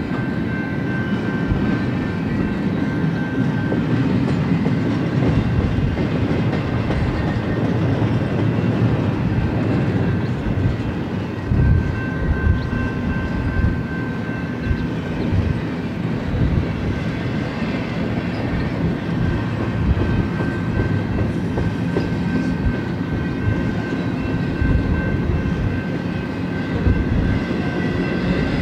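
Double-stack container well cars of a freight train rolling past, a steady rumble of steel wheels on rail with irregular clanks, a few louder ones about twelve seconds in. A thin high steady whine comes and goes over the rumble.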